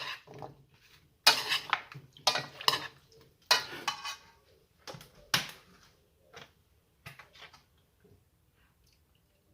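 A utensil clattering and scraping against a cooking pot in several quick bursts while ingredients are handled, thinning to a few light clicks after about six seconds.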